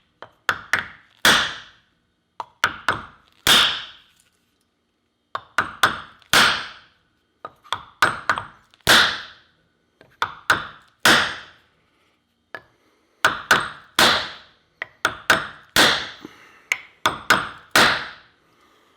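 Steel hammer driving a wooden wedge into the top of a maul's wooden handle. Strikes come in groups, a few quick light taps and then a heavier blow with a brief ring, about every two to three seconds.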